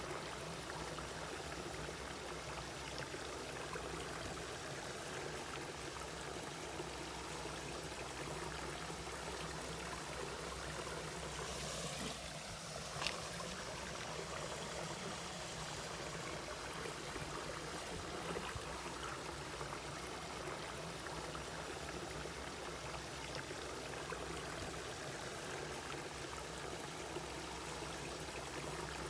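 Mountain valley stream flowing steadily over rocks, an even rush of water, with one short sharp click a little under halfway through.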